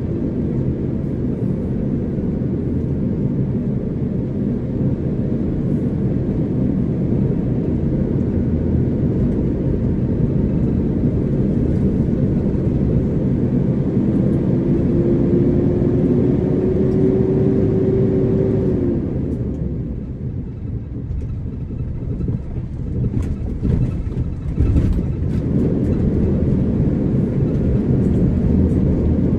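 A vehicle driving: a steady low rumble of engine, tyres and wind. A thin whine rises slightly about halfway through and stops suddenly, and the rumble briefly eases for a few seconds after it.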